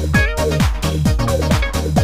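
Electronic dance music with a steady, driving beat.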